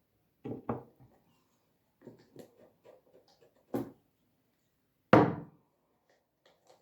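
Things being handled and set down during handicraft work: two knocks about half a second in, small clicks and rustles, then one loud thump about five seconds in.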